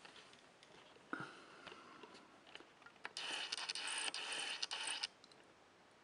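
Handling of a glass beer bottle fitted with a thermometer collar: a light knock about a second in, then about two seconds of scraping with small clicks as the bottle is gripped and turned on the table.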